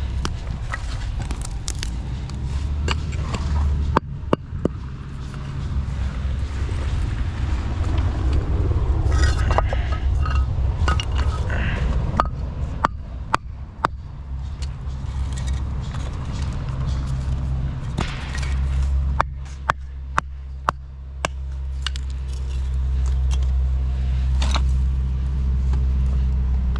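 A vehicle's engine running with a steady low rumble, with a dozen or so sharp knocks and clicks over it.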